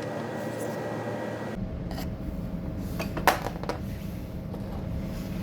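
A few sharp metallic clicks and clinks, the loudest a little past three seconds in, as a motorcycle brake caliper and its parts are handled during disassembly, over a steady background hum.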